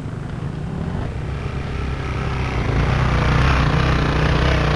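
Dirt bike engine running, growing steadily louder over the first few seconds as the bike comes up close and passes.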